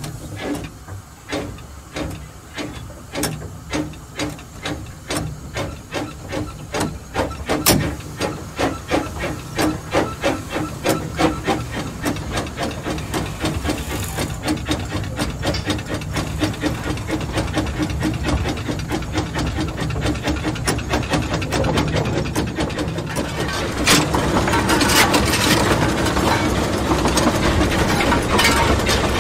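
Narrow-gauge steam locomotive pulling away, its exhaust beats starting slow and quickening steadily, with steam hissing, growing louder as it comes nearer.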